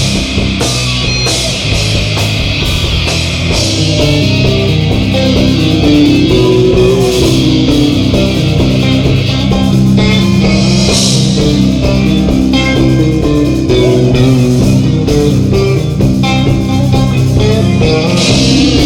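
Live stoner rock band playing loud: electric guitars and bass guitar on a heavy riff, getting louder about five seconds in.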